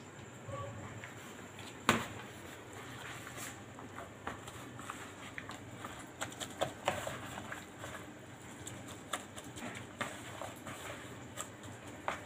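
Gloved hand mixing a chicken and spice mixture in a stainless steel bowl: scattered light clicks and taps of hand and food against the metal, with one sharp knock about two seconds in.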